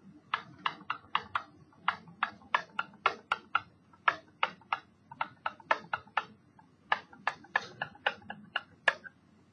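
Stylus tapping and clicking against a digital writing surface as an equation is handwritten: an irregular run of short, sharp clicks, about three or four a second.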